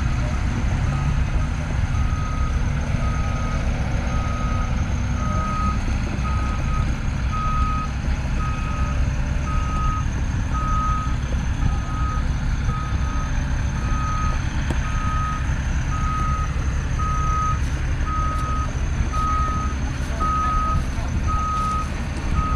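Forklift's backup alarm beeping steadily about once a second over the low, steady running of its engine, the sign that it is reversing while carrying long wooden beams.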